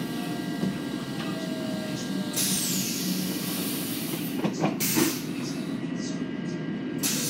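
Long Island Rail Road M7 electric train running, heard from inside the car: a steady low rumble with a faint whine. A louder hiss comes in a little over two seconds in, and a few sharp knocks sound about five seconds in.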